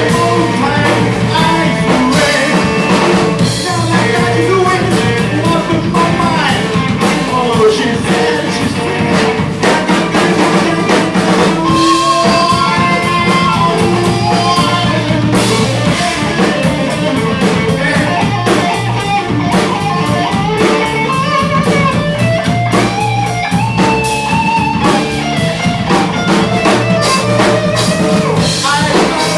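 A live rock band playing a blues-rock number: guitar with drums and bass, the melody lines bending in pitch.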